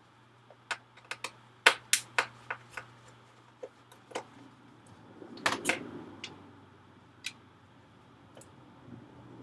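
Sharp clicks and taps of small metal and plastic parts and a screwdriver being handled while an iMac power supply is opened up, coming in irregular clusters, thickest in the first couple of seconds and again with a louder clatter about halfway through.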